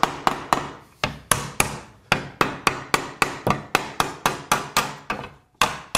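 Ball-peen hammer striking a cold-bent flat steel bar in quick light blows, about four a second, each with a brief metallic ring, with a short pause near the end. The bar's end is being hammered into a scroll against a jig of nails.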